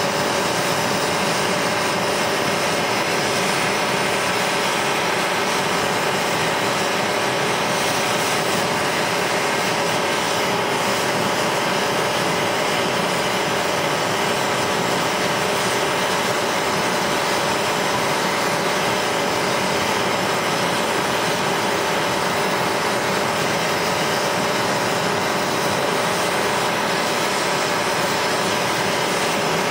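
Steady hiss of a hand-held propane torch flame, with a propane camp stove burner running beneath, heating a cast-aluminum part to aluminum-soldering temperature.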